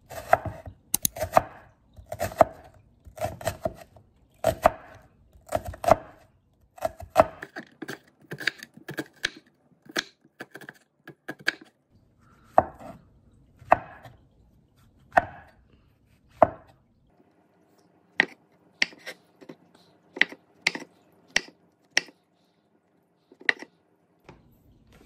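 Kitchen knife slicing button mushrooms on a wooden cutting board: a series of short knocks as the blade goes through and meets the board, one or two a second.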